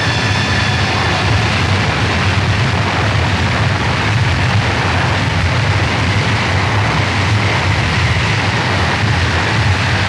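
Harsh noise music: a loud, unbroken wall of distorted noise over a heavy low rumble, with faint high whining tones fading out in the first second.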